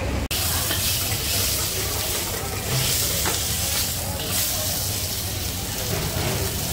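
Oil sizzling in a hot wok as a metal ladle pours it in and moves sliced fish cake around, the first stage of frying char koay teow: a steady hiss with a steady low hum underneath. A light knock of the ladle on the wok comes about three seconds in.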